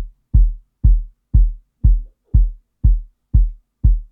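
Sub layer of a sampled acoustic kick drum playing about twice a second, each hit deep and short, its tail cut off by a volume fade.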